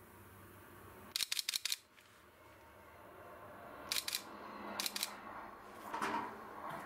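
A camera shutter firing in quick bursts: about six clicks a little after a second in, then a pair near four seconds and another near five seconds. Under the clicks, the noise of a passing train slowly grows.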